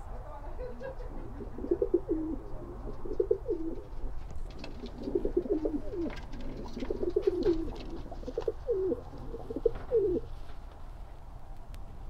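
Domestic pigeons cooing: low, warbling calls repeated in short phrases, which stop about ten seconds in. Faint clicks and rustles sound over them.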